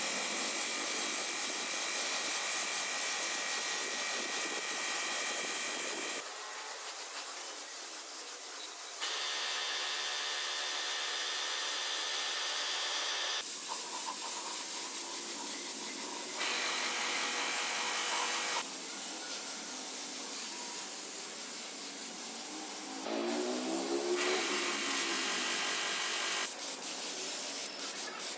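Air spray gun hissing steadily as it sprays paint, in several short takes cut together, the hiss changing in tone at each cut.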